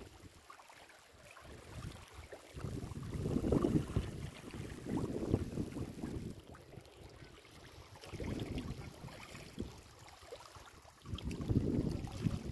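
Wind buffeting the microphone in gusts, a low rumble that swells and fades every two to three seconds.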